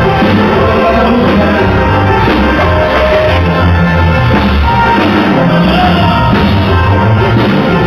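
Loud live band music with singing and a steady bass beat.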